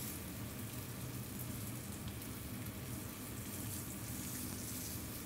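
Floured oxtail pieces sizzling steadily in hot oil in a stainless steel pan as they brown.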